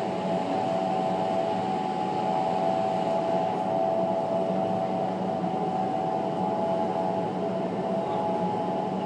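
Indoor vertical wind tunnel running: a steady rush of high-speed air and fan noise, with a hum of a few steady tones.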